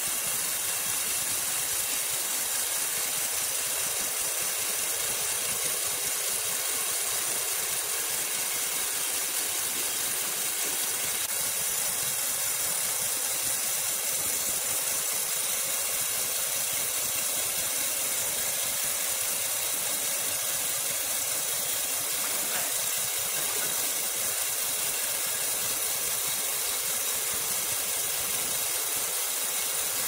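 Horizontal band sawmill blade cutting lengthwise through a large log: a steady hiss of the saw in the wood, with a faint high whine, unchanging throughout.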